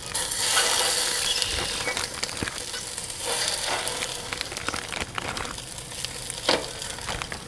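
Fish sizzling as they are laid one by one into a hot steel pan coated with cooking spray in a smoker: a steady hiss, strongest at first, with small clicks of fish against the pan. A sharp knock comes about six and a half seconds in.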